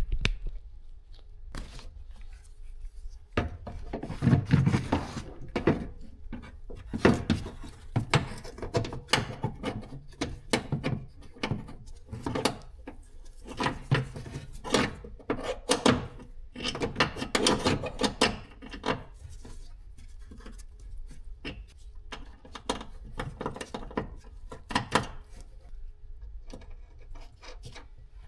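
Fiat 500 exterior door handle and latch mechanism worked by hand over and over: irregular clicks, clunks and rattles from the handle, its rods and the door latch as the repaired handle is tested.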